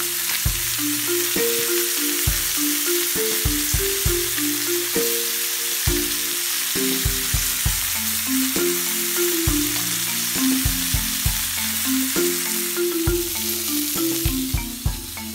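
Chicken drumsticks sizzling in hot oil in a stainless steel skillet as they brown, a steady crackling hiss, with background music underneath.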